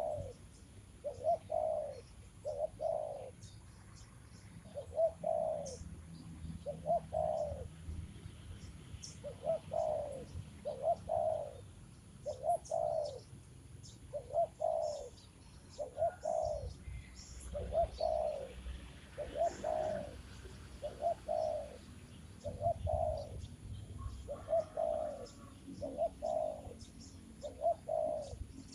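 A bird giving low, dove-like coos in pairs, repeated steadily about every two seconds, with faint chirps of small birds behind.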